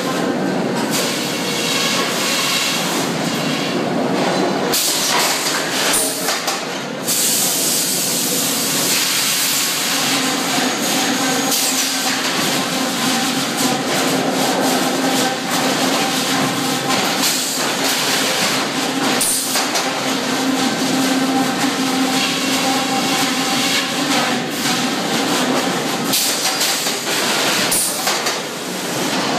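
Sawmill headrig at work: the shotgun-fed carriage clanking and hissing as it runs a hardwood log through the circle headsaw, with many sharp knocks. A steady hum joins about ten seconds in and fades near the end.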